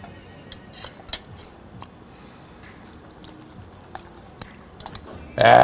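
Metal chopsticks stirring cold noodles and broth in a stainless steel naengmyeon bowl, with scattered light clicks and clinks against the bowl. Near the end a man lets out a loud, drawn-out "ahh" of satisfaction.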